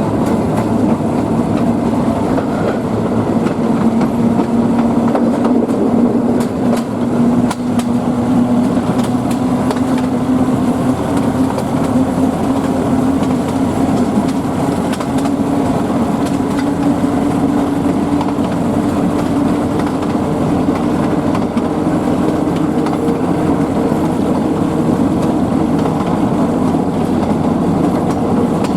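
Narrow-gauge train hauled by a TU2 diesel locomotive, running steadily with the clatter of its wheels on the rails. A hum rises slowly in pitch over the first half, then holds steady.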